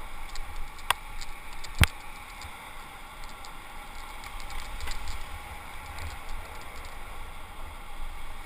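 Kite buggy rolling across firm wet sand, with wind buffeting the microphone as a low rumble under a steady hiss. Two sharp clicks sound about a second in and again a second later; the second is the loudest sound.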